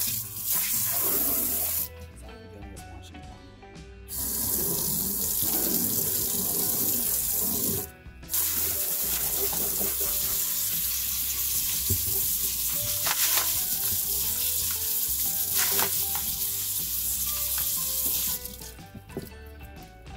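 Water running hard from a tap into a plastic utility sink, rinsing silicon carbide grit slurry off tumbled stones and ceramic media in a sieve. The flow stops for about two seconds shortly after the start, breaks off again for a moment about eight seconds in, and ends a little before the close.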